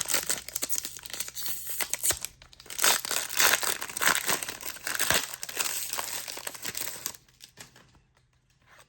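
Foil trading-card pack wrapper being torn open and crinkled by hand, a dense crackling with many sharp rustles that dies away about seven seconds in.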